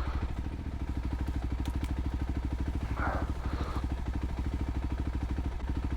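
Voge 300 Rally's single-cylinder engine idling steadily, an even low pulsing note.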